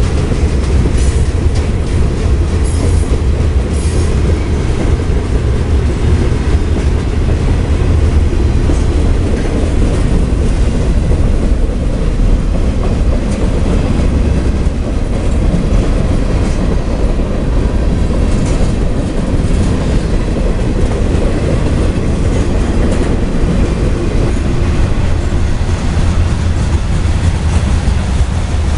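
CSX mixed freight train's cars rolling past at close range: a loud, steady rumble of steel wheels on the rails, with a few sharp clanks in the first few seconds.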